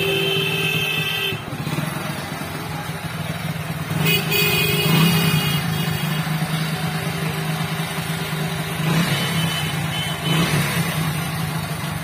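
Hero motorcycle's single-cylinder engine idling steadily. A steady tone sounds briefly twice, in the first second and again about four seconds in.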